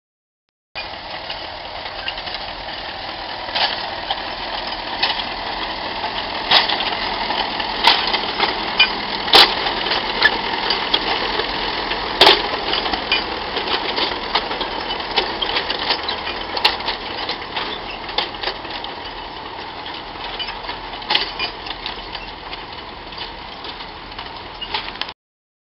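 Vintage Fordson tractor engine running as the tracked trencher drives along, with frequent sharp clanks and knocks over the engine. It starts about a second in and cuts off shortly before the end.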